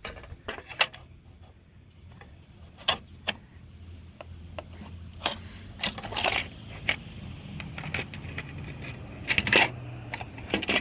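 Scattered small clicks, taps and clinks of hard plastic roof-rack parts and clips being handled and tried in place, the sharpest near the end.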